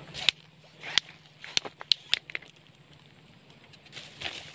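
Steady high-pitched insect buzz, with a handful of sharp clicks and taps in the first two and a half seconds from handling the fishing pole and line as a caught climbing perch is lifted out.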